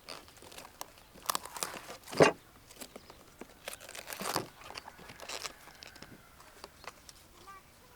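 Crisp cabbage leaves being torn and crunched, in several irregular bursts; the loudest is a little after two seconds in.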